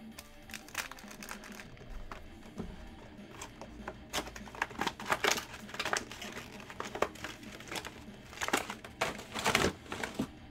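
Foil trading-card pack wrappers crinkling and crackling as packs are handled and torn open, in short irregular bouts, busiest in the middle and again near the end.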